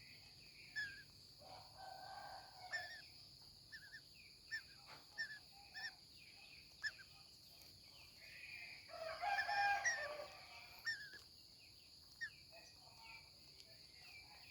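Baby green-cheeked conure making short chirps every second or so, with a louder, longer squawking call about nine seconds in.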